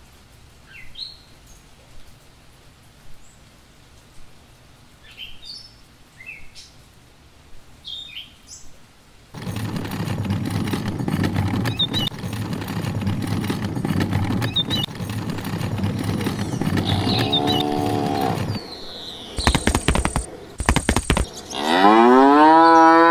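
Cow mooing: one short moo partway through over a steady noisy background, then a loud, long moo near the end that rises in pitch and holds. Faint bird chirps come before, and a few sharp clatters shortly before the last moo.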